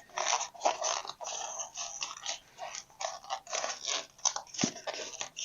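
Styrofoam packing being cut and pried out from inside a table saw, crunching and scraping in quick, irregular bursts.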